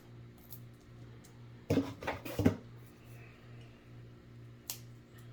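Pennies clinking and clattering as they are handled, a short burst of metallic clicks about two seconds in and a single click near the end, over a faint low hum.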